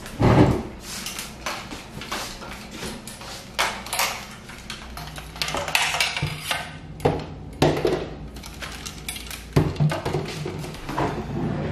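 Light tripods and a ring-light stand being handled and carried, their metal legs and plastic fittings giving a string of scattered clicks and knocks.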